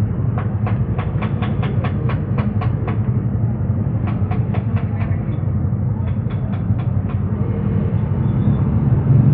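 Three runs of quick, even clicking, about four to five clicks a second, over a steady low hum.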